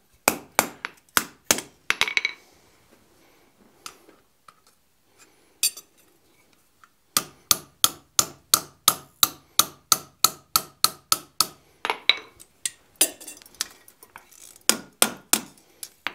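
Blacksmith's hand hammer striking hot iron on an anvil, forging a hasp strap's rolled eye around a drift pin. A handful of blows comes first, then a pause of about five seconds with only faint clinks, then a steady run of about three blows a second with the anvil ringing, and more blows near the end.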